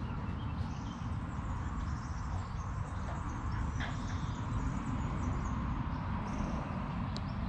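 Steady low rumble on the microphone, with a few faint bird chirps above it.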